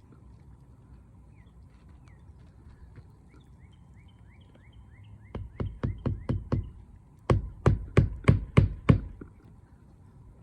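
Hammer driving roofing nails into an asphalt shingle: two quick runs of about six or seven strikes each with a short pause between, the second run louder. Faint bird chirps come before them.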